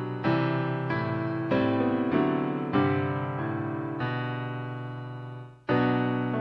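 Piano playing a slow piece in full chords, struck about once a second and each left to fade. The sound dies away briefly about five and a half seconds in before a loud chord comes in.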